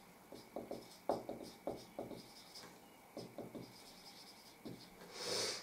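Marker pen writing on a whiteboard: an irregular run of short, faint squeaks and taps as the letters are stroked out, then a brief hiss near the end.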